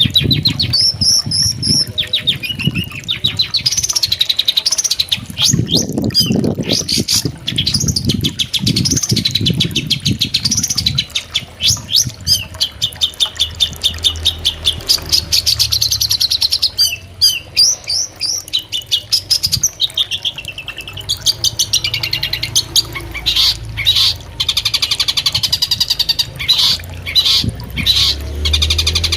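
Long-tailed shrike (cendet) singing a fast, nearly continuous chattering song of rapidly repeated high notes that sweep up and down.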